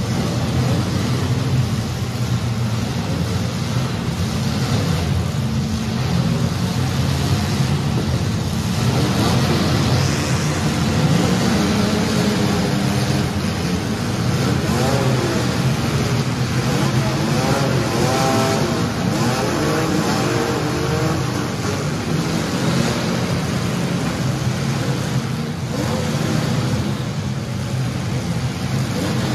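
Several compact demolition derby cars' engines running hard together, with revs rising and falling in the middle stretch as the cars accelerate and back off.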